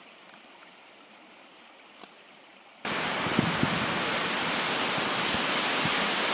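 A faint hiss for nearly three seconds, then, at a sudden cut, the loud steady rush of a mountain waterfall cascading over rock.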